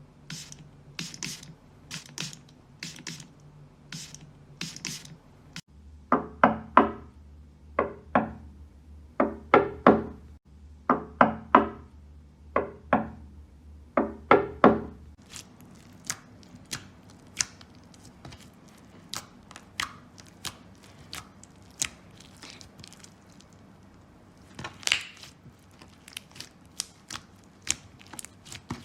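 A run of short knocks and taps: light, evenly spaced taps at about one and a half a second, then heavy hollow knocks in pairs and clusters from about six seconds in, then sparse fainter clicks after about fifteen seconds.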